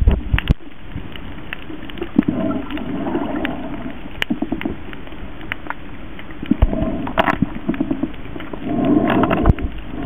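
Underwater sound of a parrotfish biting and scraping coral: scattered sharp clicks and crunches over a steady underwater hiss. Bubbling noise swells up three times, about two and a half, six and a half and nine seconds in.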